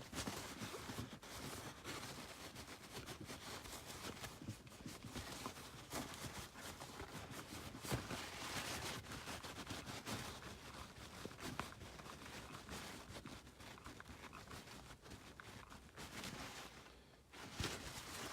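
Paper towel wet with rubbing alcohol scrubbing a Chevrolet Spark's manual shift knob: quiet, uneven rubbing and scuffing with occasional light knocks.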